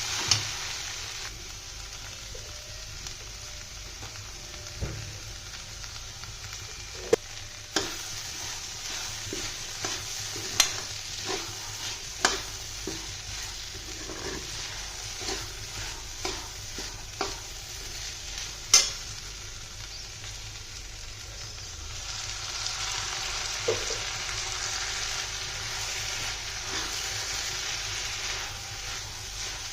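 Okra and tomato sizzling as they fry in a pan, stirred with a spoon that now and then knocks and scrapes against the pan. The sizzle grows louder about two-thirds of the way through.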